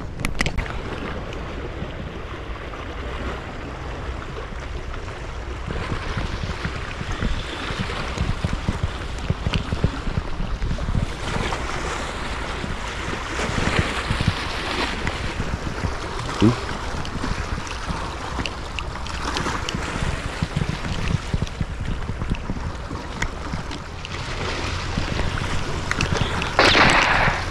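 Sea waves washing against shore rocks, with wind buffeting the microphone. The wash swells up several times, loudest near the end.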